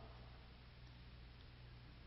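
Near silence: a faint steady hiss with a low hum underneath.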